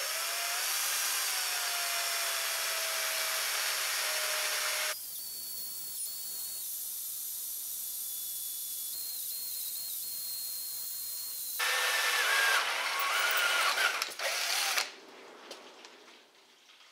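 Electric hand drill boring a pilot hole, to be tapped M6, into the metal body of a milling machine. The drill runs loud under load for about five seconds with its pitch sagging slightly, then at a quieter, higher whine, and is loud again for a few seconds before stopping about fifteen seconds in.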